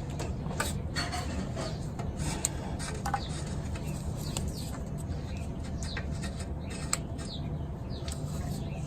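Scattered light metallic clicks of hand work on a car's exhaust oxygen sensor, over a steady low hum, with small birds chirping briefly now and then.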